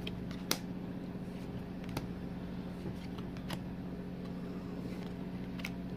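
Trading cards being handled and moved one at a time to the front of a hand-held stack, giving a few short, soft clicks over a steady low hum.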